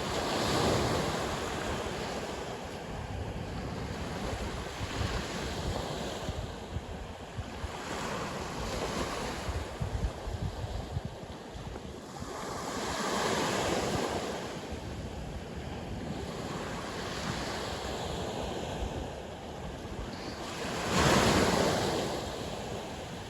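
Sea waves breaking and washing on the shore in a steady rush, with surges about 1, 8, 13 and 21 seconds in, the last the loudest. Wind blows over the microphone throughout.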